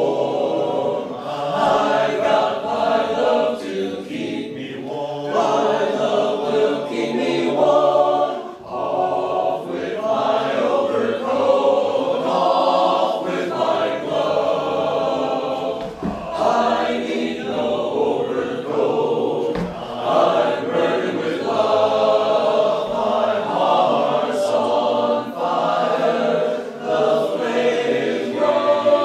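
Choir singing a song, several voices together, with only brief breaths between phrases.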